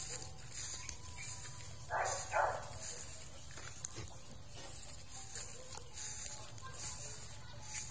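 A dog makes two short, noisy sounds a fraction of a second apart about two seconds in, over a low, steady rumble.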